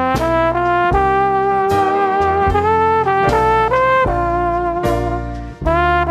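Outro music: a brass-like melody of held notes over a heavy bass line.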